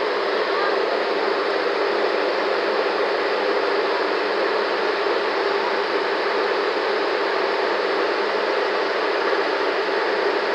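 Bitumen laying machine (asphalt paver) running with a steady, even noise.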